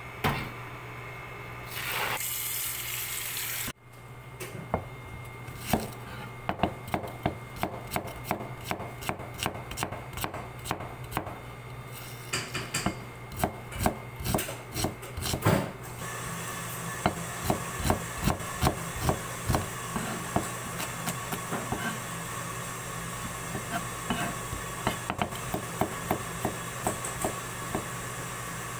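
Kitchen knife chopping garlic cloves on a cutting board: a long run of sharp taps of the blade on the board, a few a second and uneven, with a steady background noise coming up about halfway through.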